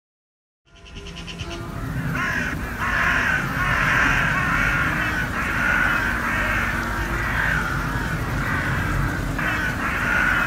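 Many birds calling at once in a dense chorus of short repeated calls, fading in just under a second in, over a low steady background rumble.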